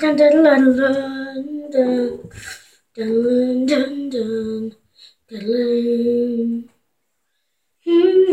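A child singing long held notes in several phrases, with no clear words, stopping for about a second near the end.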